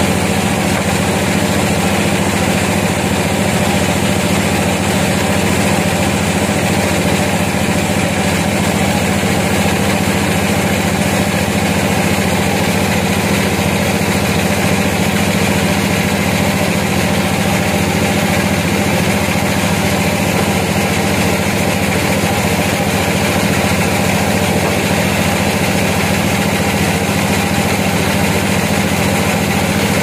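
Vertical band sawmill running steadily as its blade cuts through a log, a constant machine drone with a strong low hum.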